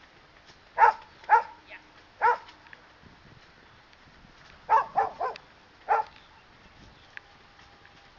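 Standard poodle on a leash barking at a decoy in protection training. There are seven sharp barks in two bursts: three in the first couple of seconds, then four more in quick succession near the middle.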